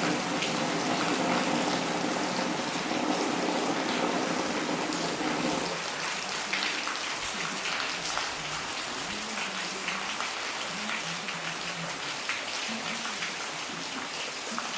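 Steady rain falling, a dense even patter. A low steady drone underneath cuts off about six seconds in. After that, faint low wavering tones sit under the rain.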